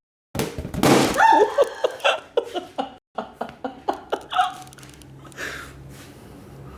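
A person laughing in short, choppy bursts, with a brief break about three seconds in and the laughter dying down near the end.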